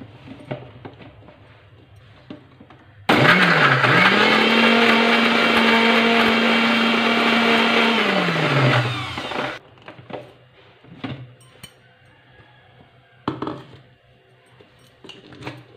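Electric mixer grinder (mixie) starting up and grinding beetroot, ginger, mint, cardamom and sugar in lemon juice, with no water added yet. It runs for about six seconds, its whine climbing quickly to a steady pitch, then winds down as it is switched off. A few sharp clicks follow as the jar is handled.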